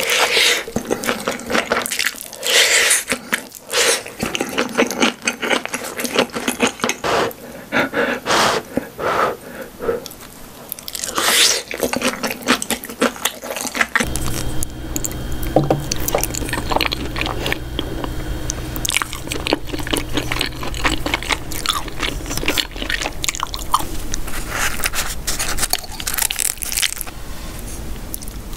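Close-miked eating of cheesy corn: irregular wet chewing, biting and soft crunching of cheese and corn kernels. About halfway through a low steady hum comes in under the chewing.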